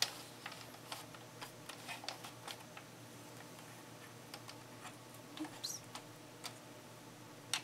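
Sentro 22-needle plastic circular knitting machine ticking faintly as its crank is turned slowly, the needles clicking about twice a second at first, then more sparsely, with one louder click near the end.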